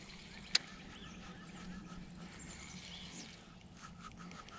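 Spinning reel being cranked to retrieve a lure: faint ticking that settles into an even rhythm of about five ticks a second in the second half, with one sharp click about half a second in and a low steady hum underneath.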